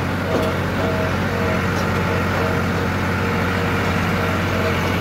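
John Deere tractor engine running steadily while towing a fertilizer spreader across the field, a constant low drone with a faint whine above it.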